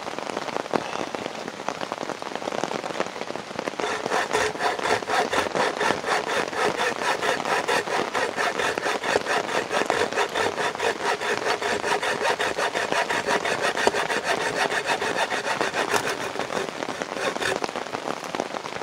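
Handsaw cutting through a forearm-thick piece of very hard, wet wood that has seasoned in its bark: back-and-forth rasping strokes, slower at first, then quick and even from about four seconds in, stopping near the end as the cut goes through.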